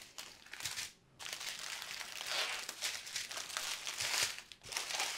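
Small plastic bags of diamond painting drills crinkling as they are handled and spread out, with a short pause about a second in.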